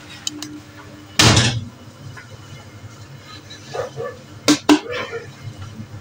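A single loud cough about a second in, then two sharp knocks at about four and a half seconds.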